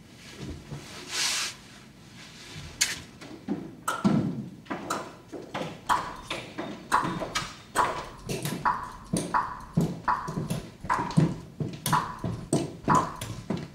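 A heavy coat rustles as it is gathered up, then footsteps of several people walk steadily over a hard corridor floor, about two steps a second.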